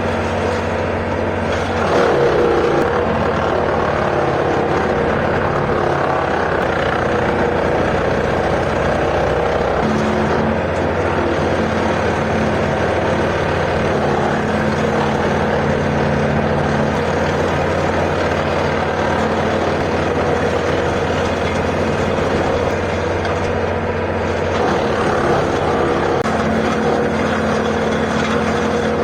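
John Deere 4600 compact tractor's diesel engine running steadily, its engine speed shifting slightly a couple of times.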